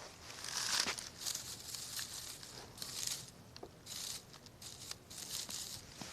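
Dry tinder being crumpled and handled: short crinkling rustles, one or two a second, with a few sharp snaps between them.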